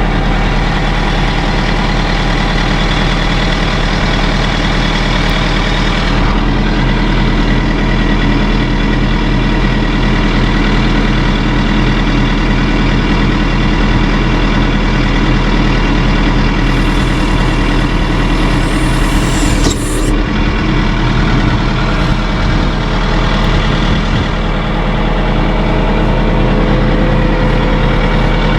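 Tractor engine running steadily while the backhoe hydraulics are worked to raise the boom and take pressure off a lock pin. A brief hiss ending in a sharp click comes about two-thirds of the way through.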